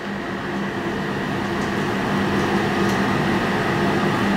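Steady mechanical hum with a few held tones, growing slightly louder, and a few faint ticks.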